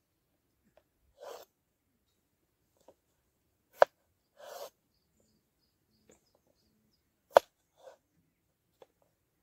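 Large knife cutting peeled potatoes on a wooden cutting board: two loud, sharp knocks of the blade striking the board, about four seconds and seven and a half seconds in, with short scraping sounds of the blade and potato pieces between them.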